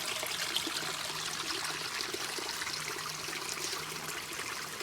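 Small brook babbling: water running and trickling steadily over stones.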